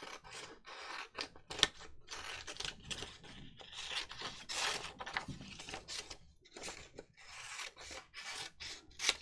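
Rapid, scratchy strokes on paper, about two or three a second, from hand work on a paper cut-out.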